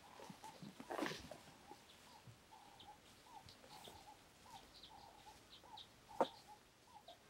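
Faint birds calling: a string of short repeated notes with a few higher chirps. Two brief rustling steps through grass, about a second in and near the end.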